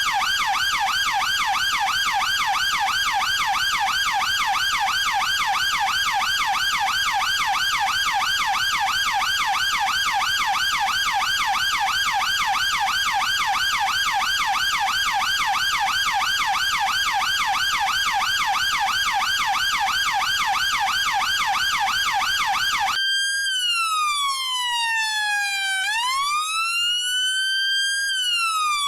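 British police car electronic siren on a fast yelp, about four pitch sweeps a second. After about 23 seconds it switches to a slow wail that falls and rises over a few seconds.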